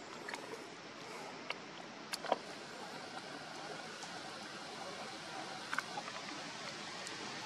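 Steady outdoor background hiss with a few soft clicks and rustles, the loudest pair a little over two seconds in.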